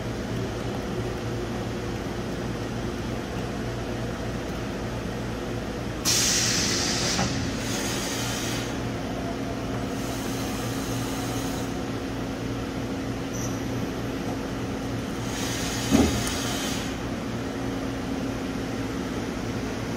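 You-Ji YV-1200 CNC vertical turning/milling center running with a steady hum. Three bursts of hissing come and go over it, the first, about six seconds in, the loudest, and there is a sharp clunk about sixteen seconds in.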